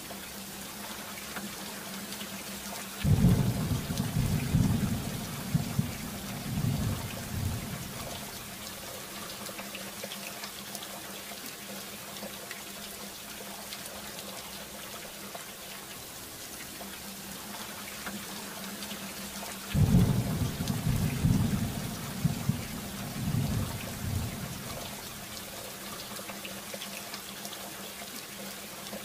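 Steady rain sound effect, a continuous hiss, with two long rolls of thunder rumbling through it, one about three seconds in and another about twenty seconds in.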